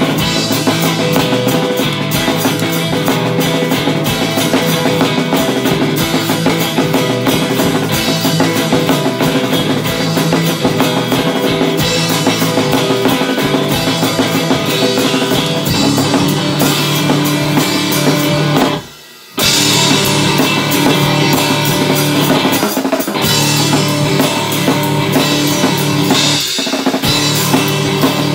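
A rock band playing live, with drum kit and guitar. About two-thirds of the way through, the band stops dead for under a second, then comes straight back in.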